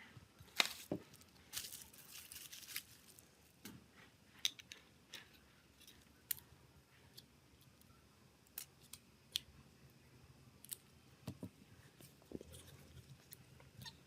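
Small hand tools working on a smartphone's parts: scattered light clicks and taps, with a short stretch of scraping about two seconds in.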